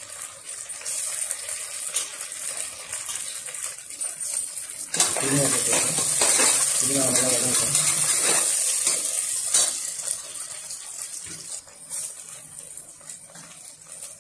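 Onions, mint and green chillies sizzling in hot oil in an aluminium pressure cooker while being stirred with a ladle. The sizzle grows much louder from about five seconds in, then drops back after about nine and a half seconds.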